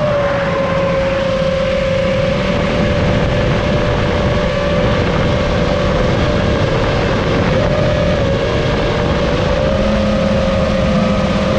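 FPV drone's electric motors and propellers whining at a steady, slightly wavering pitch over a low rushing noise from the airflow.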